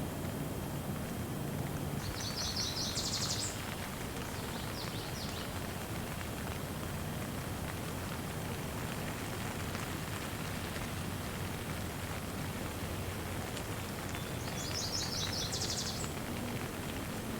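Steady rain falling, with a songbird singing a quick high trill of repeated notes about two seconds in and again near the end, and a few short notes in between.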